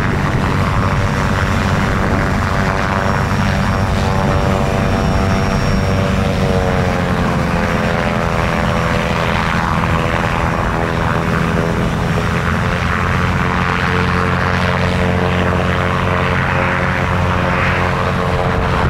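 Boeing 737 jet engines at taxi power, a steady rumble with an engine whine that rises slightly in pitch about six seconds in as the airliner taxies.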